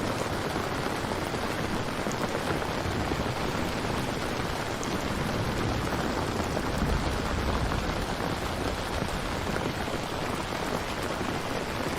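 Steady, dense rain falling, with a low rumble swelling briefly a little past the middle.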